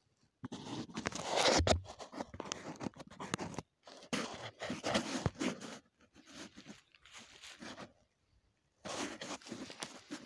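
Footsteps crunching through dry fallen leaves and loose stony soil, in irregular runs of crackling steps with short pauses between them.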